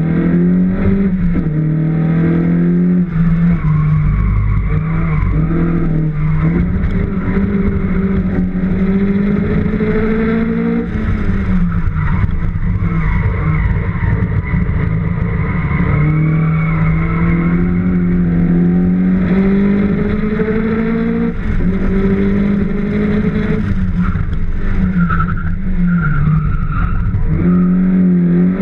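Race car engine heard onboard at speed. It climbs in pitch under acceleration and drops sharply at each of several gearchanges. A brief tyre squeal comes near the end.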